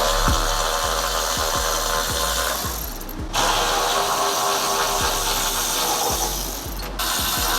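A power tool running in two long bursts of about three seconds each, with a brief stop between them, with background music with a steady beat underneath.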